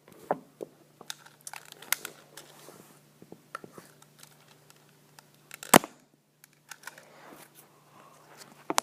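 Scattered plastic clicks and rustling from handling a toy dart pistol, with one sharp, louder click about six seconds in.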